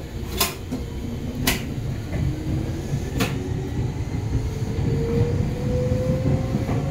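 Electric train running, heard from inside the car: a low rumble under a motor whine that slowly rises in pitch as the train gathers speed. Three sharp clacks from the wheels and track come in the first half.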